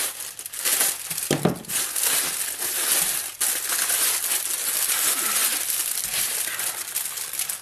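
Thin plastic postal mailer crinkling and tearing as it is cut and pulled open by hand, with the clear plastic bag inside rustling. The crackling is irregular and continuous.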